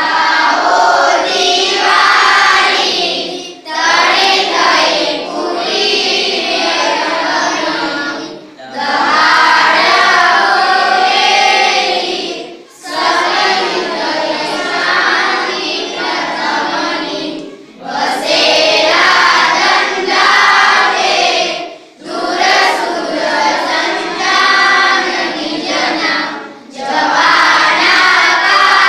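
A class of schoolchildren, boys and girls together, singing in unison in phrases of about four to five seconds, with a brief pause for breath between phrases.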